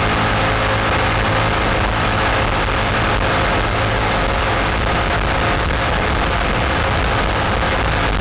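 Race jet boat's engine running hard and steady while the boat is underway, heard from on board over a constant broad hiss.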